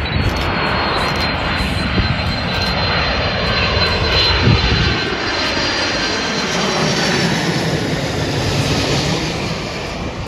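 Boeing 747's four jet engines passing low overhead on landing approach: a loud rushing roar with a whine that falls in pitch as it passes, peaking about halfway through and then fading.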